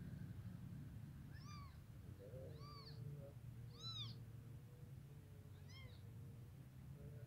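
Newborn kittens mewing: four short, high-pitched squeaks that rise and fall in pitch, spaced a second or two apart.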